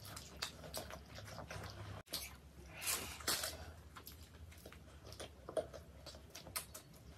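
Close-up chewing and biting into soft food, a veg burger and a pink-glazed doughnut, heard as a scatter of irregular short mouth clicks.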